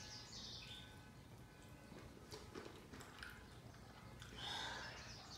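Faint mukbang eating sounds: chewing fried chicken wings and sucking hot sauce off the fingers, with small wet clicks and a louder mouth noise near the end.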